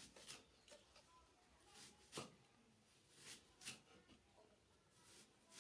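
Small kitchen knife cutting through a vegetable held in the hand: a few faint, crisp cuts at uneven intervals, the sharpest about two seconds in.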